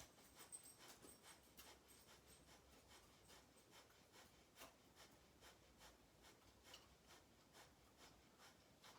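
Faint, rapid forceful exhalations through the nose, about two to three a second: Kapalabhati breathing, the belly pumping each breath out.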